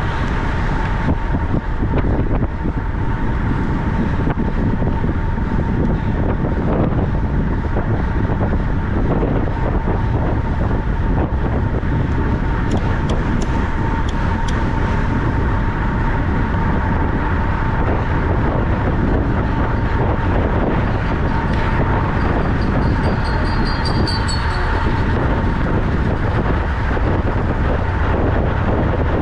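Steady rush of wind and rolling noise from a track bicycle ridden at racing speed, with a thin steady hum throughout. A few brief high clicks come about halfway through.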